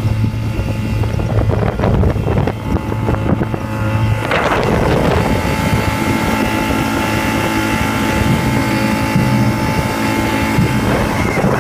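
Mercury outboard motor on a mini speedboat running steadily at speed, with wind buffeting the microphone.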